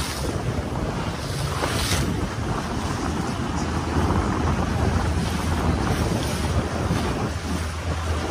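Wind noise on the microphone over the steady low hum of a boat's motor and the rush of water around the moving hull.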